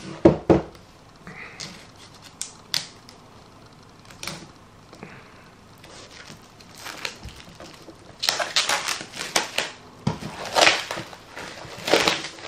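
A hardcover book knocks twice against a tabletop as it is turned over, followed by light handling clicks. From about eight seconds in, clear plastic shrink wrap crinkles and tears in loud bursts as it is peeled off the book.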